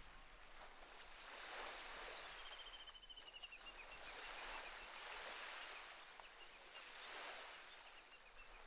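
Faint small waves washing on a rocky shore, swelling and fading every couple of seconds. About two and a half seconds in, a bird gives a short falling trill.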